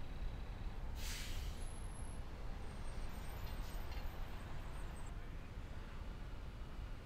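Low steady rumble of street traffic and an idling city bus, with a short hiss of released air about a second in.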